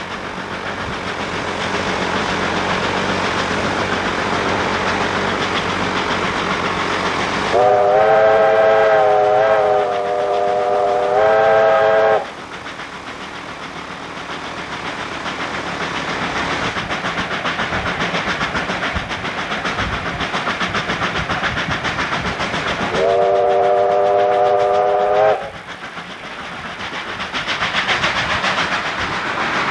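Victorian Railways R class 4-6-4 steam locomotive R 707 running along the line, its exhaust and running noise heard from the cab. Its steam whistle sounds twice: a long blast of about four and a half seconds that wavers briefly partway, then a shorter blast of about two seconds.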